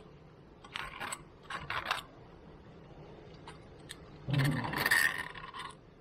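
Hand deburring tool scraping corroded rust out of a steel wheel-bearing seat in the hub carrier, in short strokes: two brief scrapes in the first two seconds, then a louder, rasping stretch of about a second and a half a little after four seconds in.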